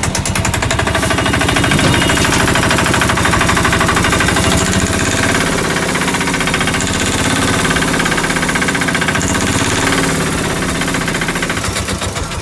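Bajaj auto-rickshaw's single-cylinder diesel engine running with a loud, fast, steady clatter. Its sound has changed, which the mechanic says in most cases happens when the head gasket has blown.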